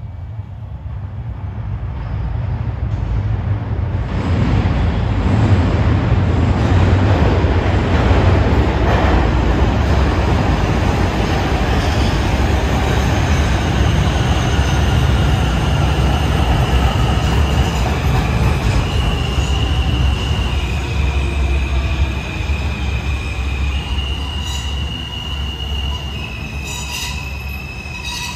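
New York City Subway R160 train moving through the station. A deep rumble of wheels on rail builds over the first few seconds and holds. From about halfway, high steady whining tones join it and shift in pitch several times, along with wheel squeal.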